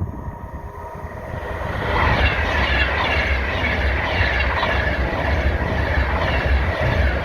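A train passing close by on the main line. The rumble builds over the first two seconds, then runs steadily loud.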